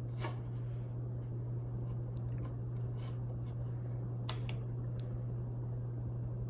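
Hampton Bay Veranda 52-inch ceiling fan running on high: a steady low motor hum with the rush of air, and a few faint ticks.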